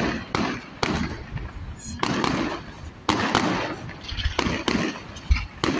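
Fireworks display: aerial shells bursting in a quick, irregular run of sharp bangs, a few a second.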